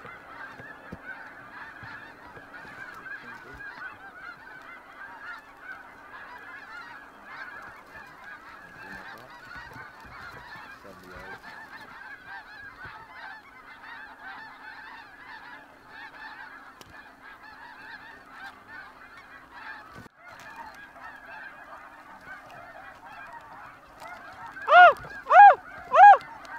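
A large flock of snow geese calling overhead, a steady din of many overlapping honks. Near the end, four loud, close honks follow one another about half a second apart.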